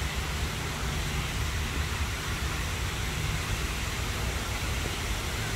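Steady rushing noise with a low rumble underneath, even throughout and without distinct events.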